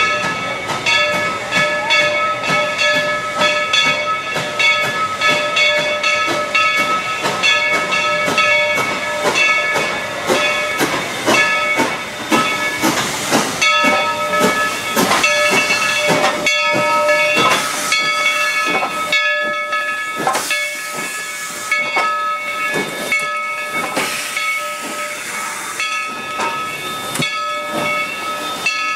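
Standing steam locomotive, Dollywood No. 70 "Cinderella", hissing steam with frequent short puffs and a steady high whine that drops out briefly a couple of times.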